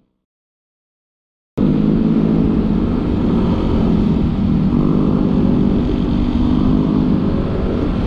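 Yamaha NMAX V2 scooter engine running steadily while riding, cutting in suddenly about a second and a half in after a moment of silence.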